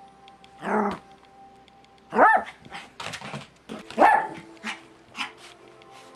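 A dog barking several times, the barks a second or two apart, the loudest rising and falling in pitch, with shorter, fainter ones near the end.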